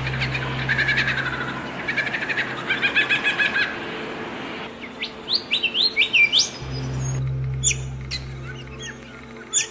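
Songbirds chirping and trilling in quick, rapidly repeated notes, with a run of short rising whistles about halfway through. A steady low hum sounds underneath for part of the time and cuts in and out abruptly.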